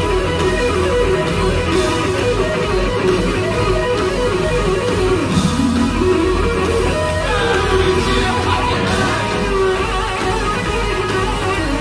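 Live electric guitar solo played loud through amplifiers: fast runs of notes over a steady low bass, with one note swooping down and back up about five seconds in and higher notes coming in a couple of seconds later.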